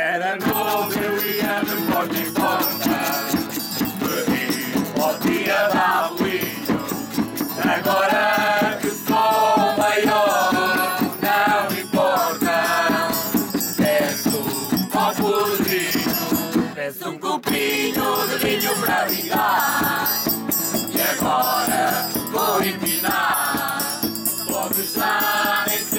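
A group of young men and women singing a Portuguese folk song together in chorus, over a steadily beaten bass drum, an acoustic guitar and a shaken rattle. The singing breaks off briefly about two-thirds of the way through, then carries on.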